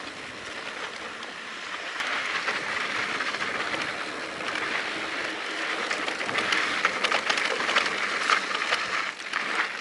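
Mountain bike rolling downhill on dry dirt singletrack: tyres crunching over dirt and loose stones, with a steady rattle of small clicks from the bike, getting louder about two seconds in.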